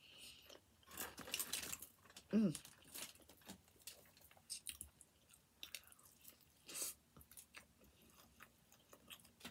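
A person chewing a mouthful of pizza close to the microphone, with many small, irregular mouth clicks. A short hum from the voice comes about two seconds in.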